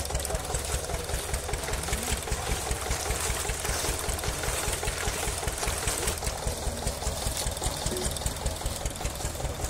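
Engine running steadily with a regular knock, about five beats a second.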